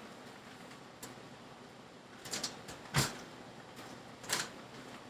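A few scattered knocks and clicks of kitchen items being handled and set down, the loudest a single knock about three seconds in.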